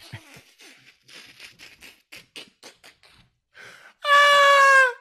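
A man laughing hard: a run of short, breathy, mostly voiceless gasps, then about four seconds in a loud, high-pitched squeal held for about a second, dropping slightly in pitch as it ends.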